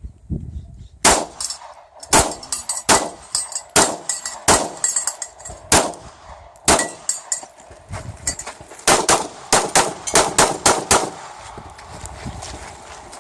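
Pistol firing a practical-shooting course of fire. The first shot comes about a second in, then single shots follow about a second apart, then a quick string of about eight shots near the end.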